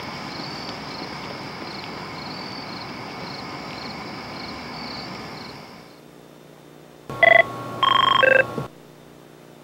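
Steady outdoor night hiss with a high chirp repeating about twice a second, cutting off about six seconds in. Then a telephone rings in a quiet room, one double ring near the end.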